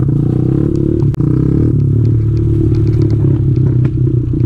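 Kawasaki KLX110 pit bike's small four-stroke single-cylinder engine running under throttle, its pitch rising and falling, with the bike's clattering and rattling and a sharp knock about a second in.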